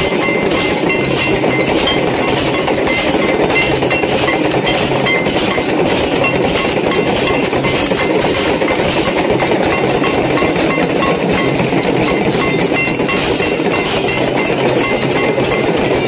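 Temple aarti percussion: brass bells clanging in a fast, even rhythm, with a continuous metallic clatter.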